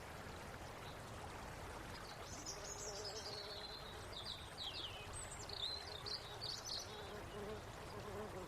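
Faint steady rush of flowing water, with small birds chirping and twittering in quick high notes from about two seconds in.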